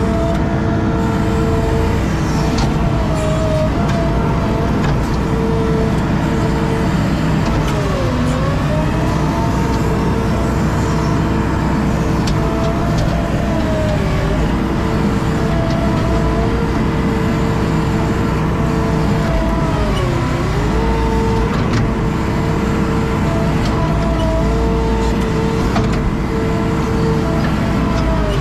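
Skid steer's diesel engine running steadily at high throttle. Its pitch sags and recovers several times as it takes load while digging.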